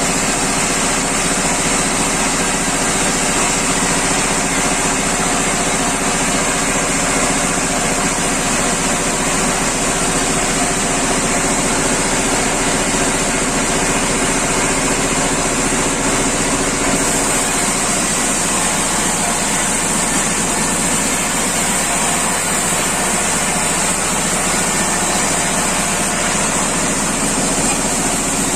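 Engine-driven wood-slicing machine running steadily, a constant engine drone with a high steady whine over it.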